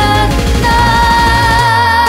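Live pop song with a female singer holding one long, steady high note that starts about half a second in, over a band backing; the drums and bass fall away near the end.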